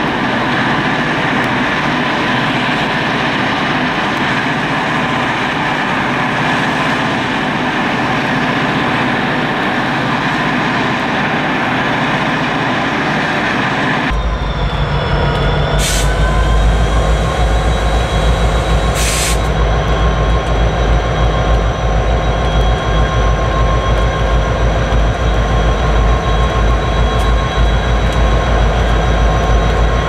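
Diesel locomotives idling in an engine yard, a steady drone without much bass. About halfway through it changes to a New York, Susquehanna & Western EMD SD70M-2 diesel locomotive pulling up to a grade crossing: a deep, heavy engine rumble with a steady whine and two short hisses.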